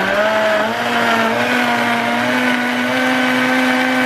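Elechrome high-speed blender running on its smoothie program, blending ice cubes, frozen banana and fruit with water. Its motor pitch steps up slightly about a second in, then holds steady.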